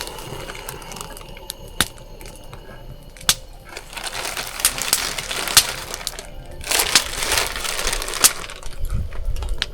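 Wood fire crackling, with irregular sharp pops and two spells of denser crackling.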